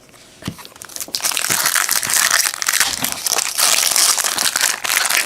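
A trading-card pack wrapper being torn open and crumpled: a dense, crackly crinkling that builds from about a second in.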